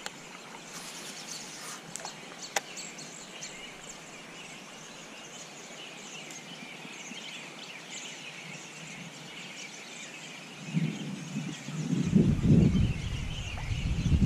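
Many small birds chirping and calling in riverside trees over a steady outdoor background, with a couple of sharp clicks early on. A louder low rumble comes in over the last few seconds.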